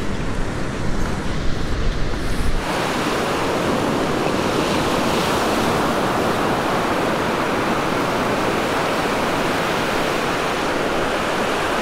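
Wind rumbling on the microphone for the first couple of seconds, then, from about two and a half seconds in, the steady wash of surf breaking on the beach.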